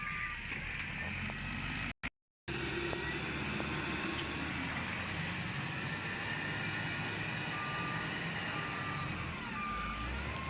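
Mahindra backhoe loader's diesel engine running steadily, with a reversing alarm sounding a row of short, evenly spaced beeps in the last few seconds. The sound cuts out completely for about half a second around two seconds in.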